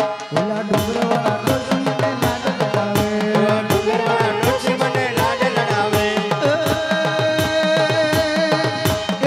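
Live Indian music: a harmonium holding steady chords while a dholak keeps a regular beat, with a singing voice coming in about halfway through.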